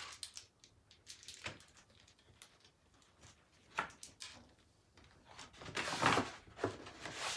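Faint rustling and crinkling of a paper mailing envelope being handled and opened, in scattered short strokes, with a louder run of rustling about six seconds in.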